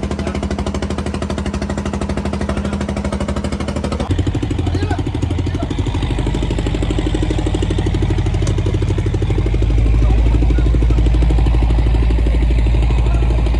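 Fishing boat's engine running steadily. Its note changes about four seconds in and gets louder and deeper from around ten seconds in, as if under more load or throttle.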